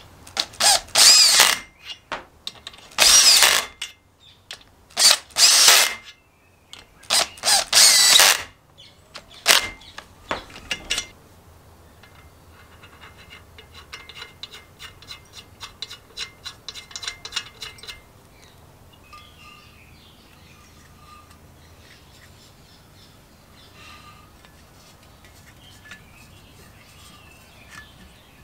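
A power driver spins a socket down onto the aluminium cylinder head nuts of a small two-stroke engine in a string of short, loud bursts. About halfway through this gives way to fainter, rapid fine clicking, then small quiet handling sounds.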